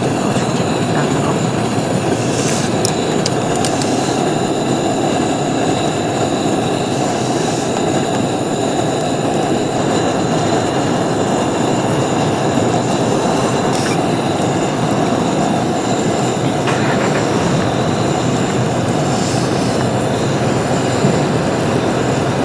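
Stainless steel pot of ramen at a hard boil: a steady, loud rushing and bubbling.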